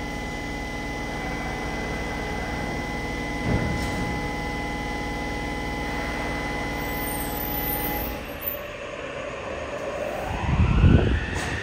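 Yokohama subway Blue Line train with Mitsubishi IGBT-VVVF traction equipment standing at the platform with a steady electrical hum, with a single thump a few seconds in. About nine seconds in the hum stops and the train starts off, its inverter whine rising in pitch over a growing rumble of motors and wheels as it accelerates out of the station.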